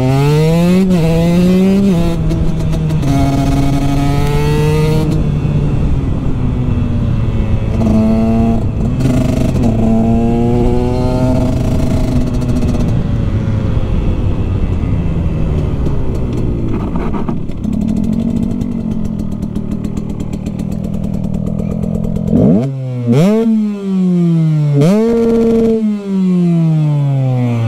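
Husqvarna 125 TX two-stroke single with an FMF expansion chamber and Akrapovic silencer. It accelerates hard through the gears, the pitch climbing and dropping sharply at each shift, then runs steadier and slowly winds down. From about three-quarters of the way in, it gives several sharp throttle blips, each revving up and falling straight back.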